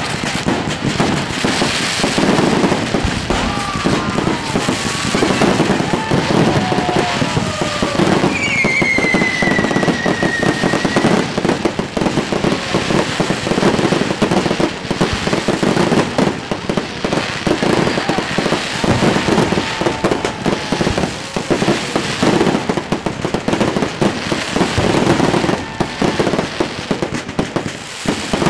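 Fireworks display: a dense, unbroken run of bangs and crackles from many fireworks going off at once. A high whistle, falling in pitch, sounds for a few seconds starting about eight seconds in.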